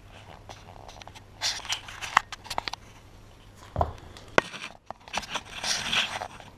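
Handling noise from a handheld camera: short scraping rustles and a few sharp clicks of fingers shifting on the camera body as it is swept around.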